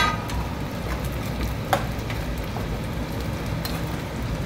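Chopped onions and bell pepper frying in a granite-coated kadai, stirred with a steel ladle that clinks against the pan about three times, over a steady low rumble.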